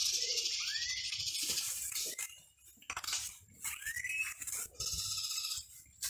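Several wild birds calling together: dense, high chattering in two long spells, with a few short rising whistled notes.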